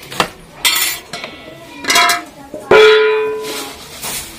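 Stainless steel utensils clinking and clattering, then a loud clang of a steel plate about two-thirds of the way through that rings on with one steady tone for about a second.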